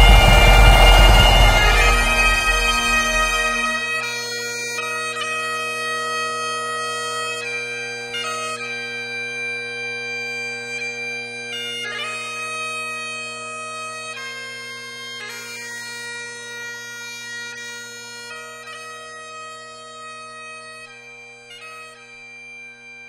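Bagpipe music: a melody played over steady, unbroken drones, slowly fading. A deep low rumble sits under it for the first few seconds, then stops.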